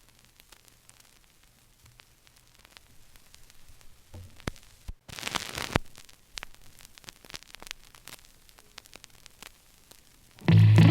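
Vinyl record surface noise between songs: faint crackle and scattered clicks from the groove, with a brief dropout and a short burst of noise about five seconds in. Music starts just before the end.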